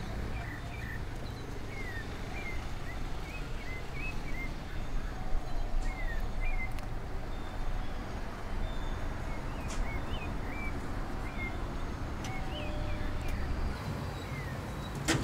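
Birds chirping with short repeated calls over a low steady rumble of street background noise.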